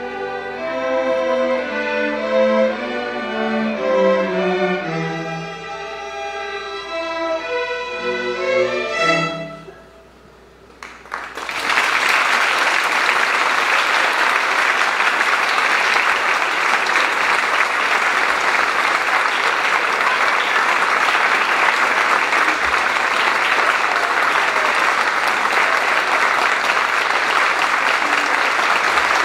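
Student string orchestra of violins, cellos and double basses playing the last bars of a piece, which ends about nine seconds in. After a moment's pause an audience breaks into applause and keeps clapping steadily.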